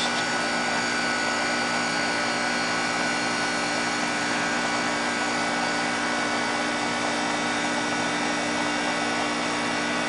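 Nordyne 2.5-ton air conditioner condensing unit running steadily with a constant hum during a pump-down with the liquid line valve closed. The reciprocating compressor cannot pull the suction side below about 30 psi, which the technician puts down to its valves bleeding by.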